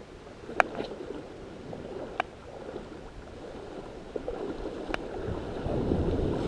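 Small waves lapping and washing up on a sandy shore, the wash swelling near the end. Three short, sharp clicks stand out along the way.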